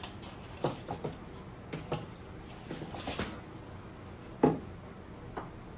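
Scattered light clicks and knocks of parts and tools being handled during taillight wiring work, with one louder knock about four and a half seconds in.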